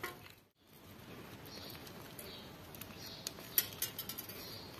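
Glittery clear slime, mixed with eyeshadow, being squeezed and stretched by hand: soft sticky squishing with small sharp clicks and pops, clustered most thickly about three to four seconds in. The sound drops out briefly about half a second in.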